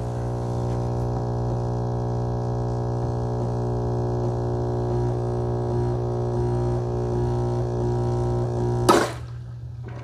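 Ninja Luxe Cafe ES601 espresso machine's pump running with a steady buzzing drone as it builds pressure during the backflush clean cycle. It cuts off with a short sharp noise about nine seconds in.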